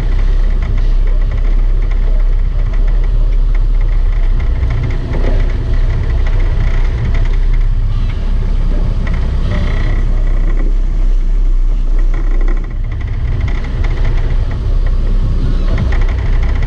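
A sport-fishing boat's engines running, a steady low rumble under a haze of water and air noise.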